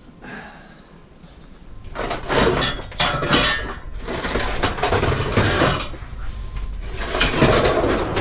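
Small pieces of scrap metal clattering and clinking as they are handled and sorted, starting about two seconds in and going on as a dense, irregular rattle of knocks.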